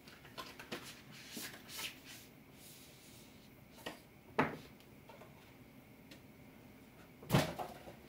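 Cardboard packaging being handled while unboxing: a run of light rustles and clicks, a sharp knock about four and a half seconds in, and the loudest knock with a brief rattle near the end.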